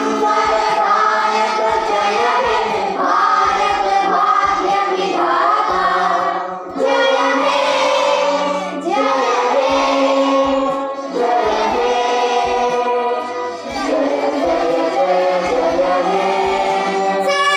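A small group of children singing together, in long phrases with brief pauses between them.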